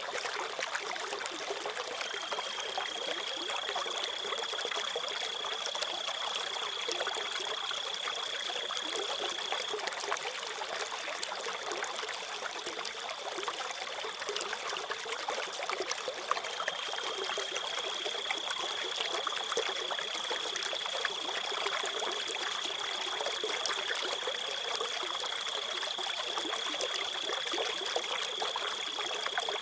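Water trickling and splashing in a steady hiss, with a cricket trilling on one high, unbroken note over it. The trill is stronger from about two to ten seconds in, fades back, and comes up again from about sixteen seconds.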